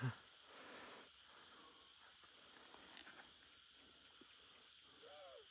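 Near silence with the faint, steady chirring of night insects such as crickets.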